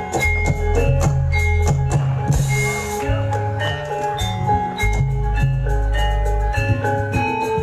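Music with drums, deep bass notes and a higher melody. A hissing crash comes a little over two seconds in.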